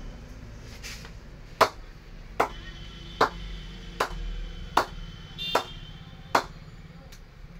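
Red leather cricket ball bounced up off the face of an SS Sunny Tonny willow cricket bat, seven sharp knocks about 0.8 s apart, testing the bat's punch.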